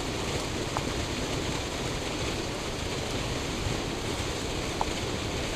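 Steady outdoor rushing noise, even throughout, with two faint short high chirps, about a second in and near the end.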